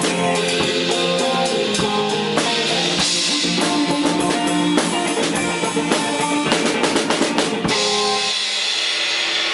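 A small band plays an instrumental rock song on drum kit and guitar. A quick run of drum strokes ends in a last hit about two-thirds in; the drums stop and a guitar chord rings on, closing the song.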